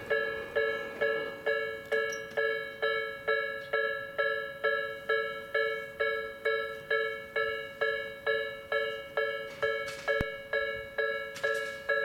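Japanese railway level-crossing warning bell, the electronic kind, ringing steadily at about two and a half evenly spaced strikes a second, each a bright ring that fades before the next. It signals that a train is approaching and the crossing barriers are down.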